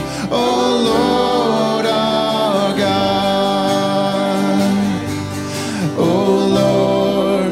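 Live worship band: vocalists singing a slow congregational worship song over acoustic and electric guitar and keyboard, with long held notes, a new sung phrase starting about six seconds in.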